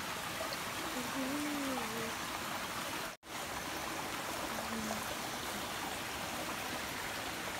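Stream running, a steady rush of water throughout, with a faint voice briefly in the first two seconds; the sound drops out for an instant about three seconds in.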